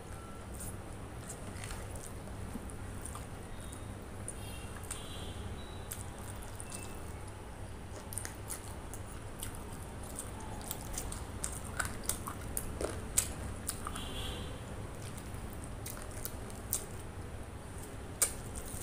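A person eating rice and chicken curry by hand: wet squishing and chewing with scattered sharp mouth clicks and smacks, more frequent in the second half. A steady low hum runs underneath.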